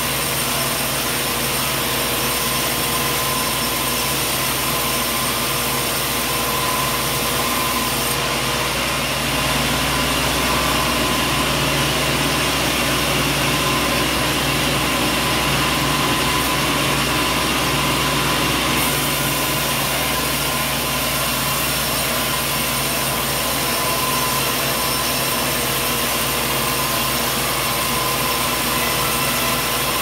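Large band sawmill running steadily, its blade and drive making a continuous machine noise as a log is worked on the table, a little louder for about ten seconds in the middle.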